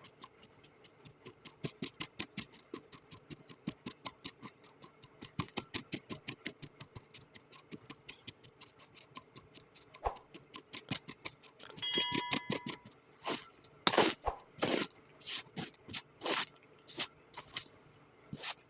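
Kinetic sand being cut, crunching crisply in a fast run of small clicks, about six to eight a second. Near the end it changes to slower, louder single crunches, with a short ringing tone about twelve seconds in.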